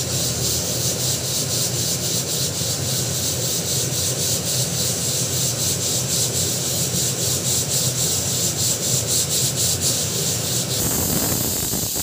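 Aluminium pressure cooker under pressure: steam sputters at the whistle weight in a steady, rapidly pulsing hiss. About eleven seconds in, the weight lifts and steam rushes out in a louder, smooth hiss: the cooker has reached full pressure and is venting.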